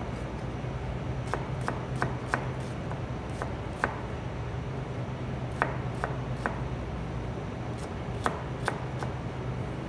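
Knife chopping an onion on a plastic cutting board: sharp, irregular knife strikes in short runs of two to four, over a steady low hum.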